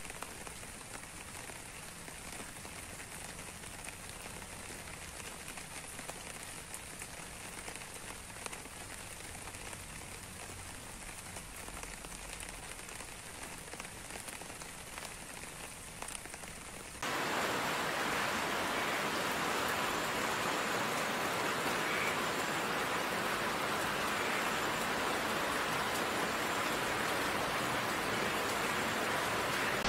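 Steady rain, with single drops dripping onto broad leaves. About seventeen seconds in it switches abruptly to louder, denser rain.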